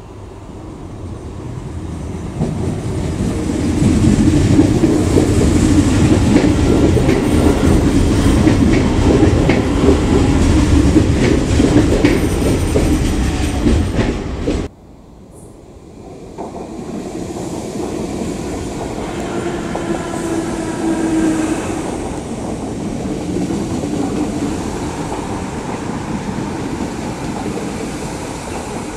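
Irish Rail DART electric multiple unit approaching and passing close by. It builds over the first few seconds to a loud, dense rumble with repeated clicks of the wheels, then cuts off abruptly about halfway through. After the cut, a DART train running along the line gives a quieter steady rumble with a faint whine.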